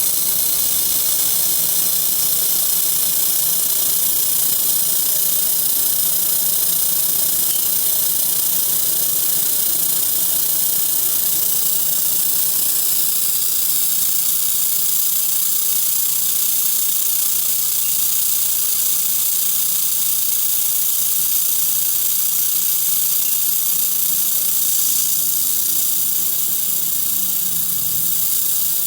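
Steady, unbroken hiss, strongest in the high range, from a fiber laser welding setup at work on stainless steel, over a faint low hum.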